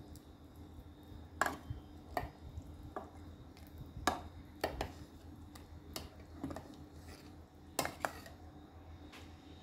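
Metal spoon stirring thick urad dal and meat gravy in an aluminium pressure cooker, knocking and scraping against the pot's sides in irregular clinks, about a dozen through the stirring.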